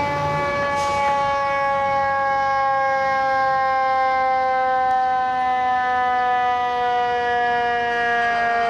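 Fire engine's mechanical siren, the Federal Q type used on FDNY apparatus, slowly winding down in one long falling tone.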